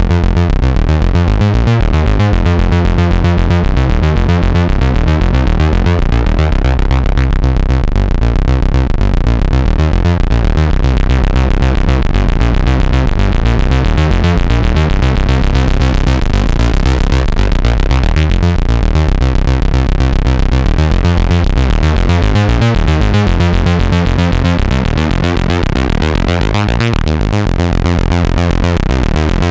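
Behringer Odyssey analog synthesizer playing a fast, repeating, bass-heavy note sequence. Its tone sweeps brighter and darker again about every ten seconds.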